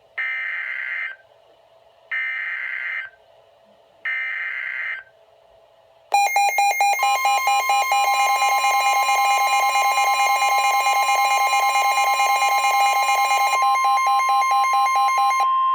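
NOAA Weather Radio SAME data header: three short screeching bursts of digital tones, each about a second long and a second apart. About six seconds in, a loud alert starts: the weather radios' rapid pulsing alarm beep, joined a second later by the steady warning alarm tone, together running about nine seconds. It is the activation for a severe thunderstorm warning.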